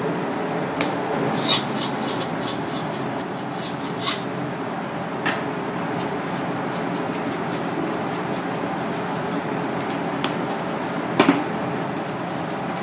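Steady fan-like background hiss in a kitchen, with scattered light ticks and clicks over the first few seconds and one sharper knock near the end, around a stainless steel mixing bowl of fish-cake mix being seasoned and then worked by hand.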